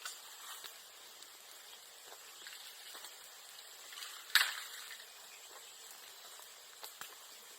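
Bonfire of bamboo and bamboo grass crackling over a steady hiss, with a few sharp pops, the loudest about four seconds in: bamboo bursting in the heat.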